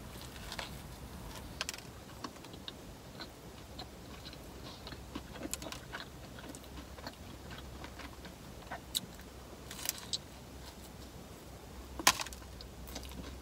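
Chewing on a mouthful of Subway sub sandwich, with soft scattered mouth clicks and a few sharper clicks, the loudest near the end.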